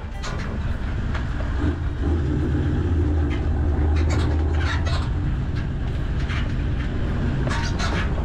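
Toyota Land Cruiser four-wheel drive crawling over a rutted dirt track: a steady low engine drone, with repeated knocks and rattles from the body and its load as it bounces through the ruts.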